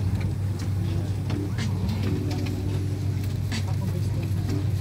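Jet airliner cabin noise while taxiing after landing: a steady low drone from the engines and cabin air.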